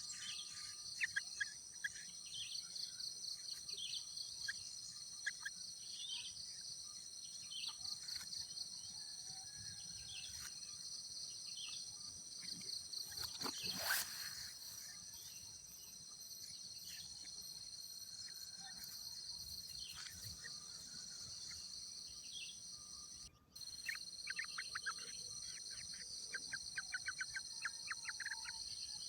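Steady high-pitched insect buzzing in the background, with repeated runs of quick bird chirps over it. The chirps grow louder to a peak about halfway through and come back in a rapid run near the end.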